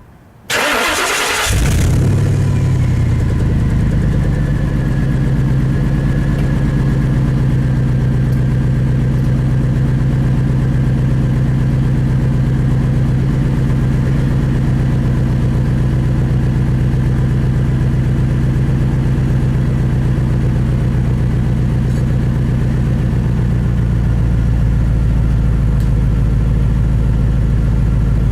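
Straight-piped 5.4 V8 of a 1998 Ford Expedition, with no mufflers, cranking and catching about half a second in, then idling loudly and steadily. The lowest part of the idle note grows a little stronger near the end.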